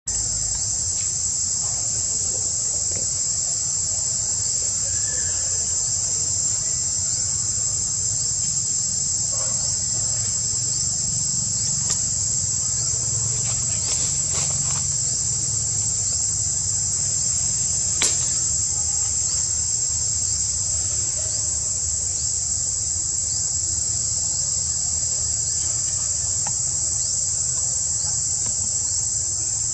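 Steady, unbroken high-pitched insect chorus over a low rumble, with a couple of sharp clicks, one about twelve seconds in and a louder one about eighteen seconds in.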